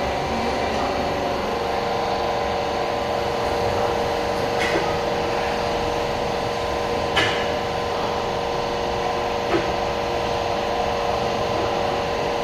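Steady background noise of a car accessories shop, with a constant machine hum made of several steady tones. A few short sharp clicks come about four and a half, seven and nine and a half seconds in.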